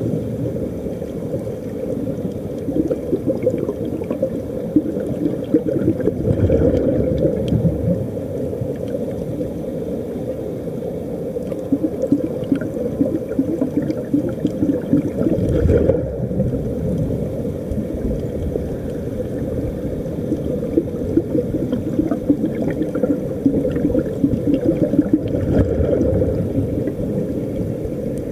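Muffled underwater rumble and gurgling of air bubbles, with a steady crackle and no clear single event.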